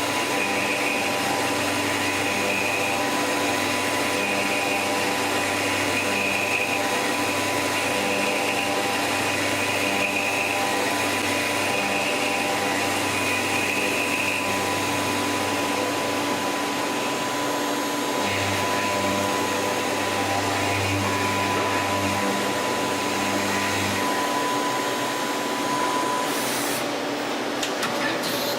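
CNC lathe running in a machine shop: a steady mechanical whir with fixed tones, and a low drone and high whine that pause about halfway and stop near the end.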